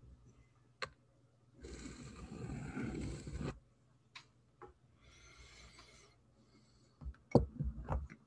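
Pencil lead of a drawing compass scraping around paper as a circle is drawn: a rasping stroke of about two seconds, then a shorter, fainter one, with small clicks between. A few sharp knocks near the end as the compass is put down.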